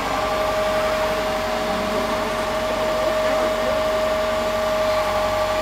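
Mobile crane running with a steady, even whine while it hoists the maypole upright.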